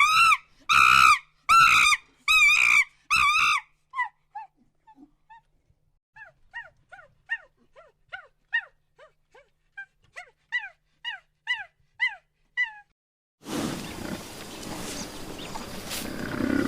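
An animal calling: loud, evenly repeated pitched calls about twice a second for the first few seconds, then a quicker series of fainter short falling calls. About 13 seconds in these stop and a steady noisy rush with low rumbling takes over.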